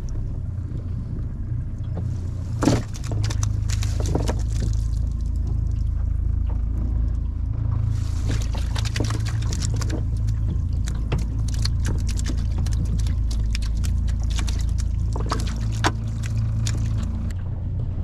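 A shrimp cast net being handled on a boat deck: water dripping and small clicks and crackles as the wet net and its lead line are gathered and lifted, with a single sharp knock a few seconds in. A steady low rumble runs underneath.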